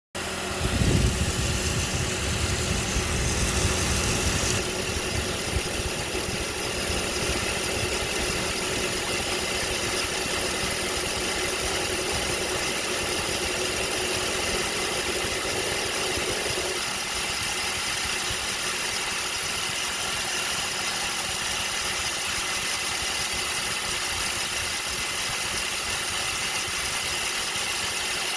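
Car engine idling steadily with a hiss over it, after a heavier low rumble in the first few seconds; the car's air conditioning is running on a newly replaced compressor.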